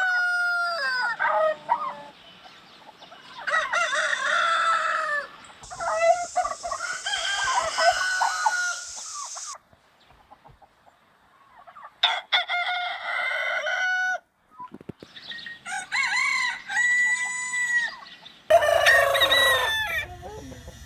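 Roosters crowing: about six long crows one after another, with some clucking between them. Several of them start or stop abruptly.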